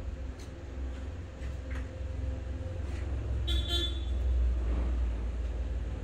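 Steady low rumble, with a short vehicle-horn toot about three and a half seconds in.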